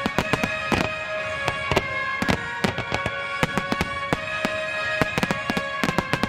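Aerial firework shells bursting in rapid, irregular sharp bangs, several a second, over music with long held notes.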